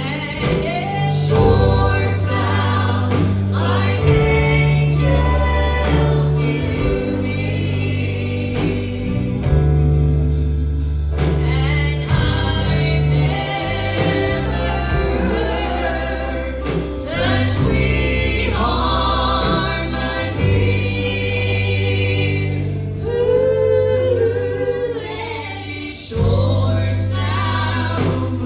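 Gospel song: several voices singing together, with wavering held notes, over a steady, strong bass line.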